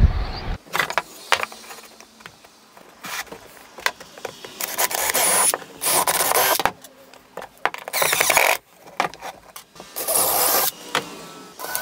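DeWalt 20V cordless drill boring pilot holes into pine boards in about five short runs, each under a second long. Between the runs, wood and tools knock on the workbench.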